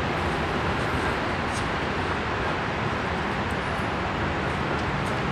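Steady rushing background noise with no distinct events, only a few faint clicks.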